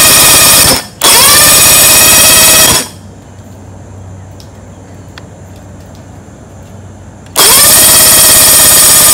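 Electric starter cranking a 1973 Johnson 25 hp two-cylinder two-stroke outboard over without it starting, in three loud bursts. Each burst begins with a rising whine as the starter spins up. The cranking stops for about four seconds in the middle and starts again near the end. The engine is being turned over to test for spark, and the bottom cylinder still has none.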